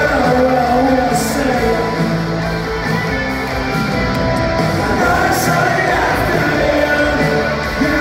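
A live rock band playing loudly in an arena, guitars and drums with a singer's voice over them, heard from the crowd through a phone's microphone.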